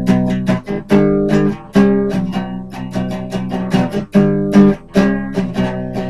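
Acoustic guitar strummed in a quick, steady rhythm, changing chords every second or so, with no singing.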